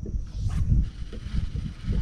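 Wind buffeting the microphone in low, irregular gusts, with a brief hiss about half a second in.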